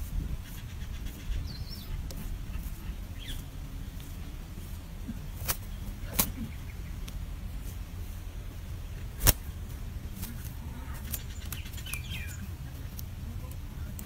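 Faint, short high peeps that fall in pitch, from nestlings begging as they are fed at the nest, over a steady low rumble. A few sharp clicks are heard, the loudest about nine seconds in.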